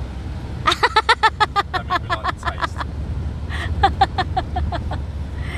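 High-pitched laughter in two quick runs of short pulses, the second starting about three and a half seconds in, over the steady low rumble of a car driving.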